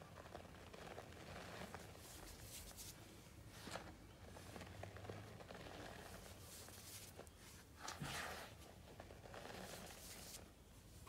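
Faint, soft crunching and swishing as clumps of packed white powder are squeezed and crumbled between the hands in a plastic tub, in irregular strokes, the loudest about eight seconds in.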